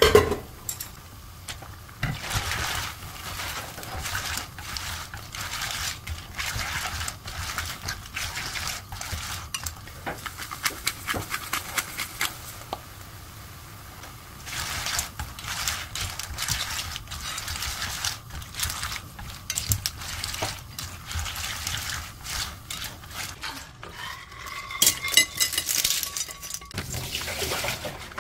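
Utensils clinking and scraping against a pan and plate, with wet sloshing, as vongole pasta is served out of the pan. A steady high tone sounds for a few seconds near the end.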